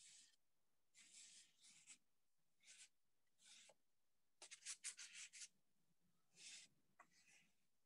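Palette knife scraping thick pink acrylic texture paint across a stretched canvas: a run of short, faint scrapes, with a quick flurry of strokes about halfway through.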